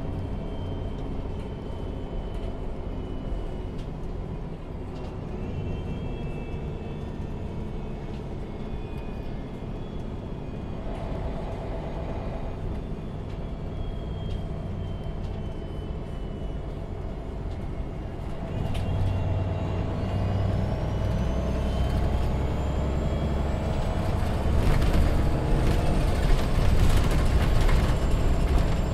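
Interior of a MAN Lion's City G articulated city bus on the move, its diesel engine running at a low, steady hum. About two-thirds of the way through the engine grows louder as the bus accelerates, with a high whine rising in pitch. Rattling comes near the end.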